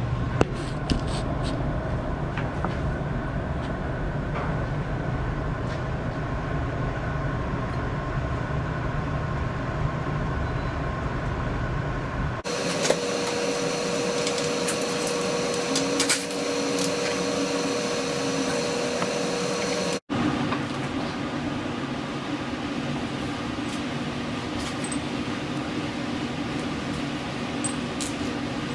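Steady mechanical hum with a few light clicks and taps, changing character abruptly twice.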